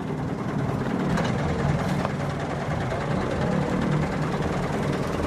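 Diesel truck engine idling steadily, a low even hum.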